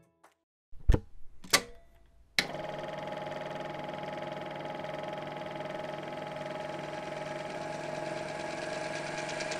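Sound effect of an old film projector running. Two sharp clicks come first, then from about two and a half seconds in a steady whirring clatter with a fast, even flutter.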